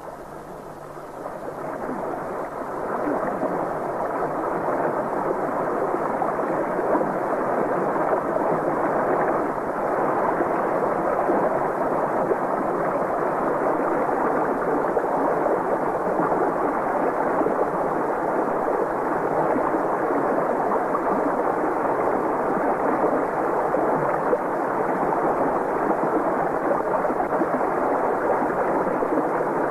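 Steady rushing of a small waterfall and stream, swelling up over the first few seconds.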